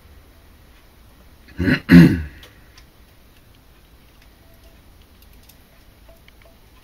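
A man coughs twice in quick succession, short and loud, about two seconds in. Faint small clicks of the plastic RC wheel being worked on its aluminium axle otherwise.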